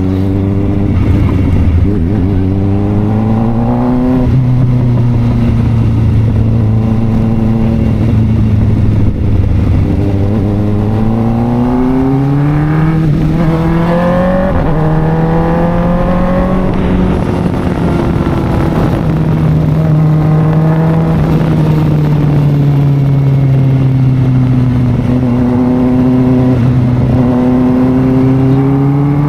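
2023 Kawasaki Ninja ZX-4RR's 399 cc inline-four running through an SC Project aftermarket exhaust under way. Its revs climb and drop sharply several times as it accelerates through the gears in the first half, then settle into a steadier cruise with gentle rises and falls.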